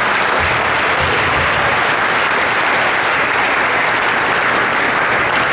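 Audience applauding steadily as a speech ends.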